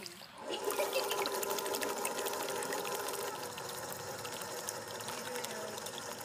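Electric drive of an RC paddlewheel towboat running, powered by two 7.2-volt batteries in series through a pulley. A steady mechanical whine mixes with the stern paddlewheel slapping and splashing the water in a rapid patter of clicks, louder from about half a second in.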